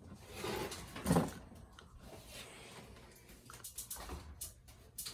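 Scrapes and light knocks of hand work on a drywall repair, spackling and tape being handled, with the loudest scrape about a second in.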